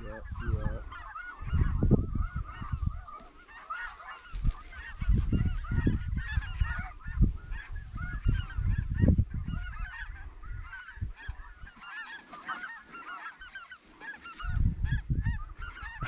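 A large flock of snow geese calling, a dense, continuous chorus of short, high yelping calls. Low rumbles of wind on the microphone swell up several times.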